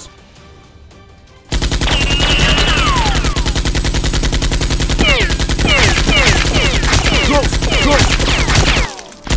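Rapid automatic-gunfire sound effect dubbed over a Nerf blaster fight. It starts about a second and a half in and stops shortly before the end. From about halfway, quick falling whistling tones like bullet ricochets run through it.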